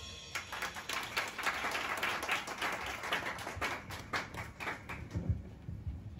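Scattered clapping from a small audience, thinning out near the end, with a few low thumps about five seconds in.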